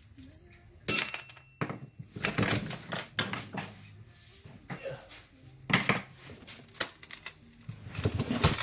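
Metal parts and hand tools clinking and rattling as a 1/5-scale RC truck is taken apart: a string of sharp clicks and short clatters, loudest about a second in and again near the end.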